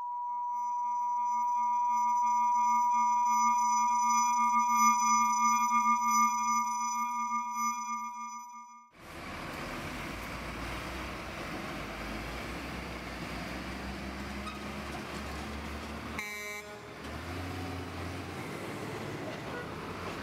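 A steady electronic tone, a high whine layered with a lower hum, which fades in and is held for about nine seconds before cutting off abruptly. After the cut come wet street traffic sounds in heavy rain: a steady hiss of rain and tyres with the low rumble of trucks and cars driving past, and a brief sharp sound about three-quarters of the way through.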